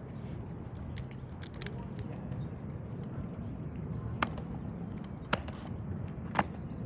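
Four cadets marching in step on a hard court surface: sharp heel strikes stand out about once a second in the second half, over a steady low background rumble.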